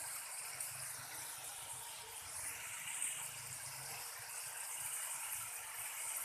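Potatoes frying in hot oil: a steady sizzle.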